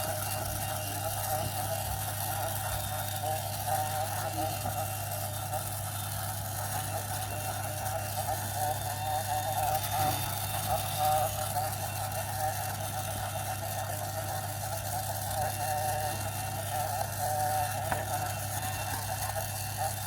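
A small motor running with a steady, unchanging hum.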